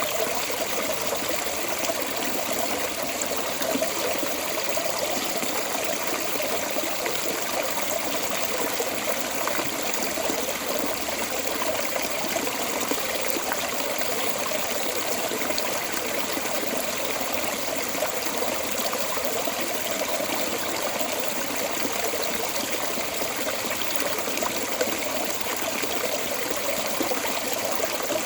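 Water running steadily out of a storm drain outlet, a continuous splashing flow with no breaks.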